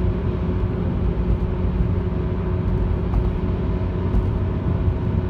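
Car driving along a road: a steady low rumble of engine and tyre noise with a faint, even hum.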